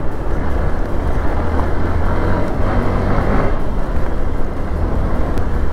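Hero XPulse 200's single-cylinder engine running while the bike is ridden along a rough dirt trail, under a steady rush of wind and tyre noise, swelling a little about three seconds in.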